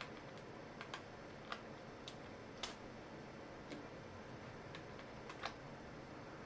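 Light, sharp plastic clicks of mechanical keyboard parts being handled, about ten of them at uneven intervals, the loudest a little over a second and about two and a half seconds in.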